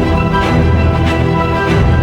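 Cinematic background music with strong sustained bass and a steady beat about three times a second.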